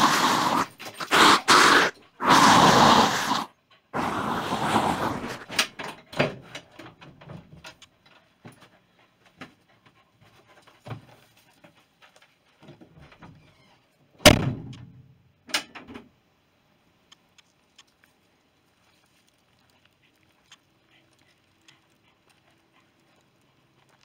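A dog breathing heavily in loud bursts close by during the first few seconds, then paws and small knocks on a van floor. A loud thunk comes about fourteen seconds in, with a second knock soon after.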